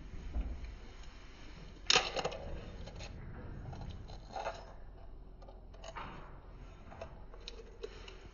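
Eggs being cracked against a bowl: a sharp tap about two seconds in, then a few lighter taps and clicks.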